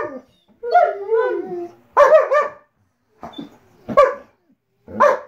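Adult German Shepherd whining and yipping: a run of about five short, high calls that bend up and down in pitch, the longest just under a second in.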